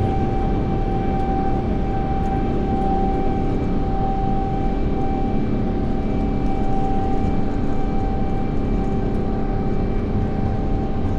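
Jet airliner engines heard from inside the cabin during takeoff: a loud, steady rumble with a strong steady whine and fainter tones above it.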